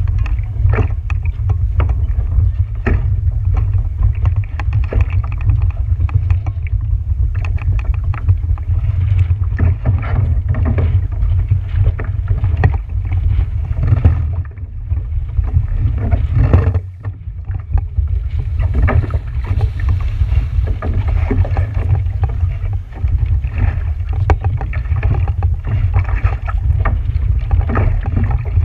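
Wind buffeting the microphone in a heavy low rumble, with water slapping and splashing against a boat's hull in irregular strokes.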